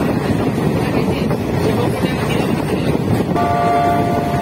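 Steady rumble and rush of a diesel-electric multiple unit (DEMU) train running, heard from onboard with wind noise on the microphone. About three seconds in, the train's horn starts sounding one steady tone that holds on.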